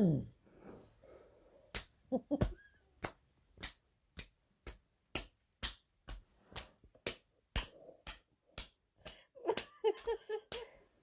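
A run of sharp clicks or slaps, roughly two a second, going on for most of the stretch, after a short low sound that falls in pitch at the very start.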